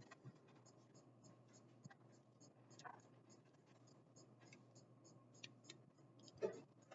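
Near silence with faint, scattered clicks and scratches of hands handling and posing a plastic action figure, working its ball joints.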